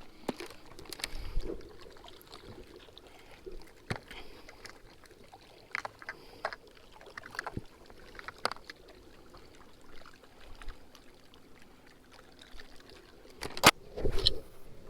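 Small sounds of a fishing boat on the water: a low wash of water against the hull with scattered light knocks and clicks, the sharpest one near the end.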